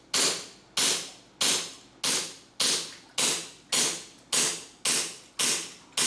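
KJ Works KP17 gas blowback airsoft pistol on green gas, fired semi-automatically in a steady string of about ten shots, one roughly every 0.6 seconds. Each shot is a sharp crack with the slide cycling, trailing off quickly.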